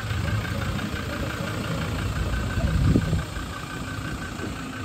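Ford Ranger pickup's diesel engine idling steadily with a light regular clatter, swelling briefly about three seconds in.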